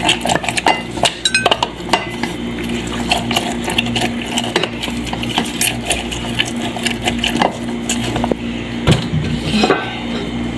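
Irregular clinks and scrapes of kitchen utensils against a dish as a lemon is juiced by hand, over a steady low hum.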